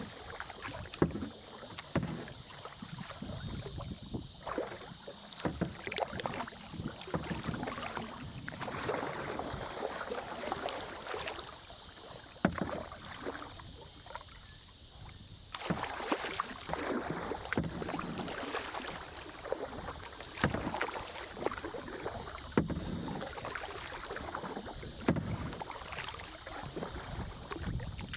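Kayak paddling on a lake: the paddle blades dip and pull through the water in repeated swells of splashing and dripping, with a few sharp knocks now and then.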